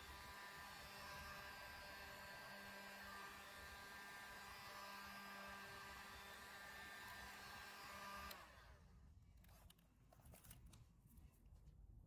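Electric heat gun blowing hot air, a faint steady hiss with a light hum, melting the solder ring inside a solder-seal heat-shrink connector. It cuts off abruptly about eight seconds in.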